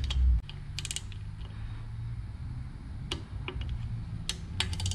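Ratchet of a click-type torque wrench clicking in short quick runs, about a second in and again near the end, as rocker box cover bolts on a Harley Twin Cam engine are run down in their torque sequence. A low bump at the very start, and a low steady hum underneath.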